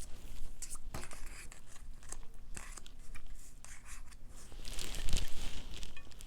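Close-miked eating and food-handling sounds: paper or wrapper crinkling with scattered small clicks and mouth noises, with a louder rustle about five seconds in.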